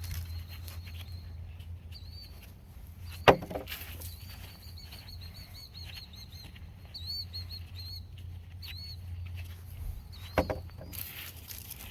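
A small bird chirping repeatedly in short arched notes, over a low steady hum, with two sharp knocks, one about three seconds in and one near the end.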